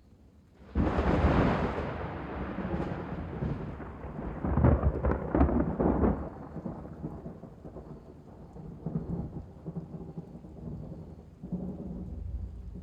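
Thunder: a sudden loud clap about a second in, rolling into long rumbling. A second strong peal follows around the middle, and lighter rumbles come near the end.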